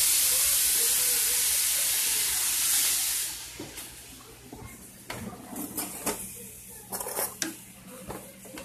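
A hot cooking pan hissing loudly with steam and sizzle, fading out about three seconds in. Light clicks and knocks of cookware follow.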